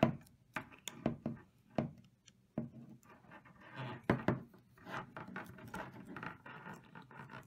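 Channel-lock pliers and an adjustable wrench clicking and scraping on an aluminium AN hose fitting as its nut is tightened, with irregular knocks of the tools and fitting against a wooden tabletop.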